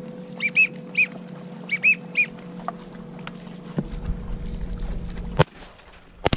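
A series of short whistled duck calls, each rising and falling in pitch, over a steady low hum, then a shotgun firing about five seconds in, the loudest sound, with another sharp crack about a second later.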